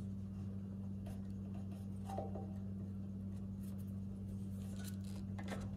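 Faint scattered clicks and ticks of multimeter probe tips and fingers handling the wires at the generator head's brush connections, over a steady low hum.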